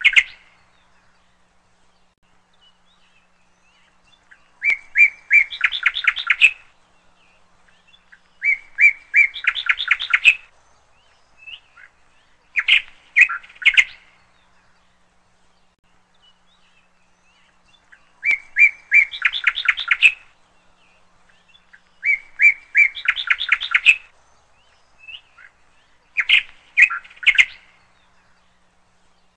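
A songbird singing in short phrases of about two seconds, repeated every four seconds or so with one longer pause midway. Each phrase is a few repeated chirps running into a quicker, higher trill.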